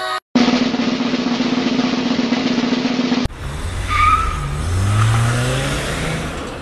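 Edited-in sound effects. About three seconds of steady rushing noise with a low hum end in an abrupt cut, followed by a race-car engine sound rising in pitch.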